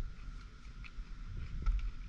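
Low, uneven rumble of wind on the microphone, with faint soft clicks of a man chewing raw conch kinilaw close to the phone.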